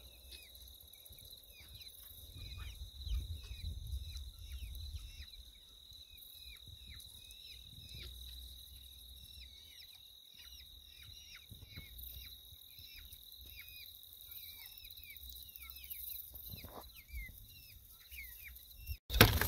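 Rural outdoor ambience: a steady high-pitched insect trill with many short bird chirps over it and a low rumble underneath.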